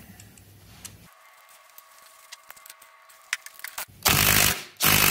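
Faint clicks of a nut and small parts being handled, then a cordless DeWalt impact driver running in two short bursts, about four seconds in and again near the end, spinning a nut down onto a supercharger pulley hub.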